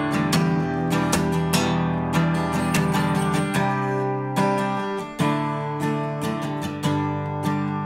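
Background music: acoustic guitar strumming chords in a steady rhythm, an instrumental passage of a song with no singing.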